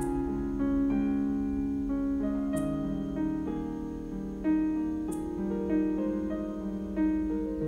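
Background piano music with held notes that change in steps. A soft high tick comes about every two and a half seconds.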